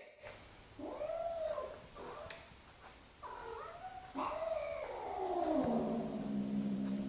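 Cat yowling: several drawn-out wails that rise and fall, the last one sliding down near the middle into a long, low, steady growl. This is a cat's warning at a first face-to-face meeting with a newly introduced cat.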